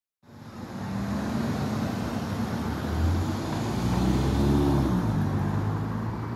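City street traffic, with a car driving past close by, its engine hum swelling in the middle.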